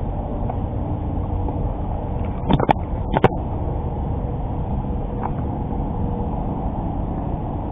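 Three shotgun shots in quick succession, about two and a half to three and a half seconds in, fired at ducks flying over. They sit over a steady low rumbling background noise.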